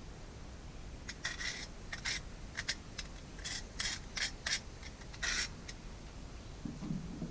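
A run of about a dozen short, scratchy scrapes and rubs as parts of an Oregon CS300 self-sharpening chainsaw are worked loose by hand while its old sharpening stone is removed.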